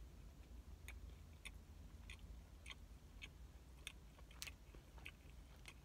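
A person chewing a mouthful of granola bar: faint, evenly spaced crunches, a little under two a second.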